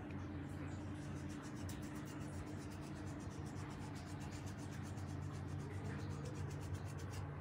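Quiet room tone: a steady low hum with faint light rubbing and ticking handling noises.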